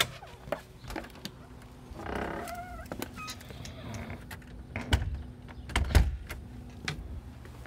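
A door creaks open with a squeaky, wavering sound, then footsteps in worn sneakers step down concrete steps, with two heavy thuds about five and six seconds in.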